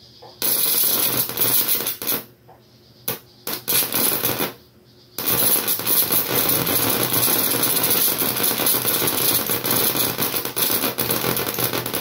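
High-voltage arc from a TV flyback transformer crackling across the gap between its output leads and a wire on a microwave-oven capacitor, a fast run of sharp snaps. It comes in stretches: about a second and a half near the start, a few short bursts around three to four seconds in, then continuous from about five seconds in.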